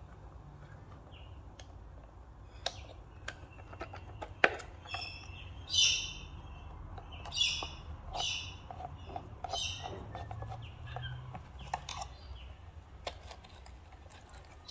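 Scattered sharp clicks and taps of small hand tools and parts while an instrument cluster is dismantled on the bench. Several short high chirps fall through the middle, over a faint low hum.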